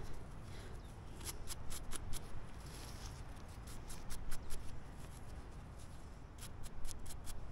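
Faint clicks and light scratches of fingers handling and rubbing a small rust-encrusted metal coin, coming in three short clusters over a low background hum.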